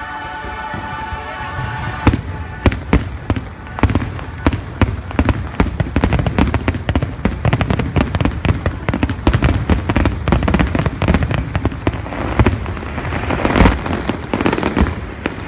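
Fireworks going off, with rapid sharp bangs and crackles starting about two seconds in, over show music. Near the end come a stretch of hissing crackle and the loudest bang.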